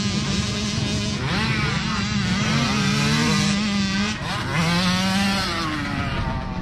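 Several small two-stroke motocross bikes racing, their engines revving. Many overlapping engine notes rise and fall over a steadier low drone.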